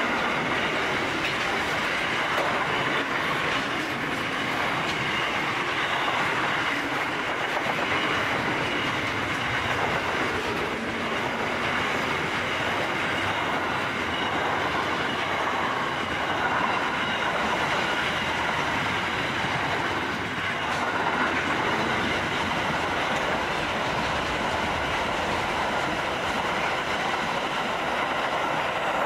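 Wagons of a long mixed freight train rolling past: a steady rumble and clatter of steel wheels on rail, with faint steady high tones over it.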